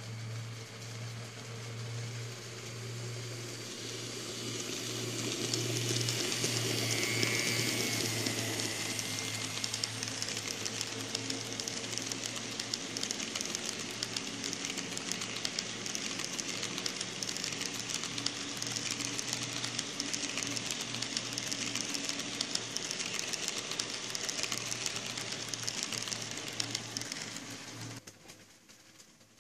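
N scale model passenger train running past on the layout's track: a steady low hum with a dense, fine rattling hiss of small wheels on rail, growing louder over the first several seconds as it nears, holding steady, then dropping off sharply shortly before the end as the train clears.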